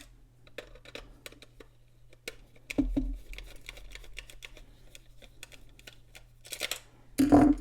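Small plastic clicks, taps and light scraping from handling and prying at a cheap plastic flip clock during disassembly, with a louder clatter near the end.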